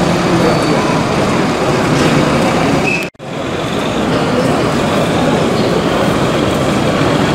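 Steady hubbub of a busy exhibition hall, a dense din of many distant voices and background noise. It cuts out abruptly for a moment about three seconds in.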